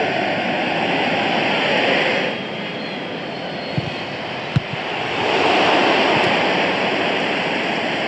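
Stadium crowd roar, swelling loud around the first two seconds, dipping, then rising again from about five seconds in as the shot goes at goal. Two short sharp thuds come a little before the second swell.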